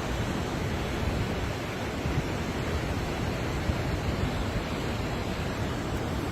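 Steady rush of fast-flowing water, an even roar with no breaks.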